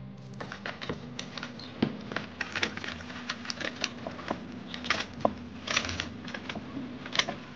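Irregular light clicks and clatter of small hard objects being handled, several a second, over a faint steady hum.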